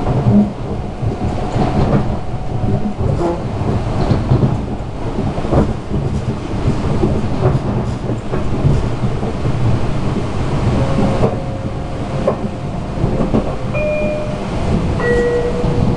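Metro-North electric commuter train heard from inside the car while running at speed: a loud, steady rumble with irregular knocks of the wheels over the track. A few short high tones sound near the end.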